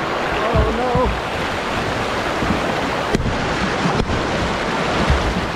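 Steady rushing noise of river water around a kayak, with wind buffeting the microphone. A brief wavering cry comes about half a second in, and two sharp ticks come a little after the middle.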